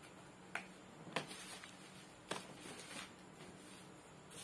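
About four sharp, separate plastic clicks at irregular spacing as a small plastic fishing reel is handled in the fingers.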